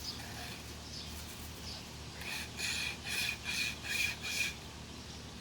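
Braided-wire survival pocket saw cutting through a dead tree branch: after a quieter stretch, about six quick back-and-forth sawing strokes, two or three a second, from about two seconds in.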